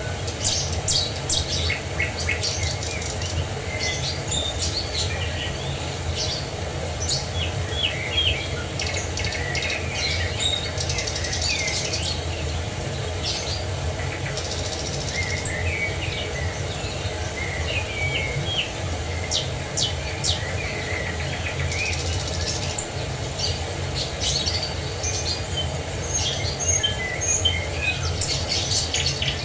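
Many birds chirping and trilling, in short calls scattered throughout, over the steady rush of a waterfall.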